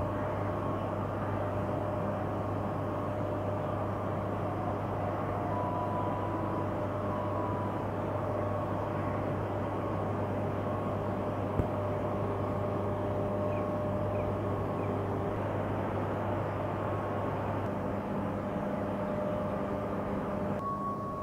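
Stacker-reclaimer machinery running: a steady low hum with higher steady whining tones from its motors and gearing. There is a single sharp click about halfway through.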